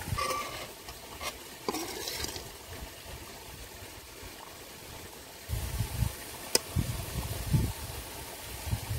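Steel spoon scraping and clinking against a steel pan as a vegetable stir-fry is scooped out, a few sharp clinks among softer scrapes. A low rumble comes in about halfway.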